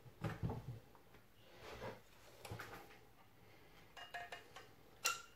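Faint handling noise at the countertop: soft knocks and rubbing, then from about four seconds in a run of light metallic clicks and clinks as a metal caulking gun is picked up and handled.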